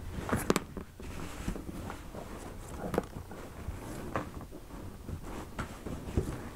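Cardboard shipping box and packaging being handled and pulled open by hand: scattered knocks, clicks and rustles, the sharpest about half a second in, around three seconds and again near the end.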